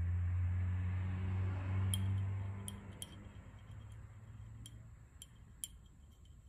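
A low hum, its source unseen, swells at the start, holds for about two seconds and fades away over the next three. Light sharp clicks come every so often as glass dropper bottles and their caps are handled on the table.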